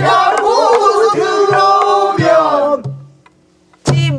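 Pansori singing: women's voices carry one phrase with bending, wavering pitch, over buk barrel-drum strokes keeping the beat. The singing stops about three seconds in, and a sharp drum stroke lands near the end.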